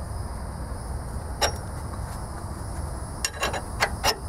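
Sharp metal clicks from a ball joint press as its screw is worked with a long bar to press out a ball joint on the front suspension. One click comes about a second and a half in, then a cluster of clicks near the end.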